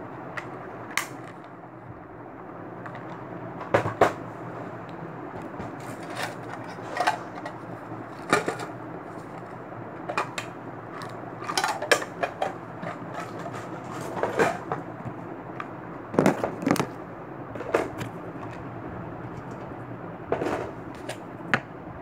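Small makeup cases and containers being handled: scattered clicks and knocks, some in quick pairs, over a steady background hiss.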